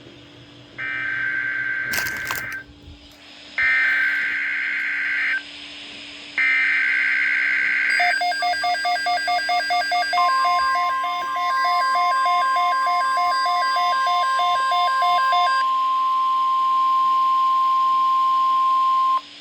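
Emergency Alert System tones on NOAA Weather Radio: three short bursts of SAME digital header data, a screechy buzz each, then fast pulsing electronic alert beeps. From about ten seconds in, the steady 1050 Hz weather radio warning alarm tone sounds over them and cuts off just before the end. There is a single click about two seconds in.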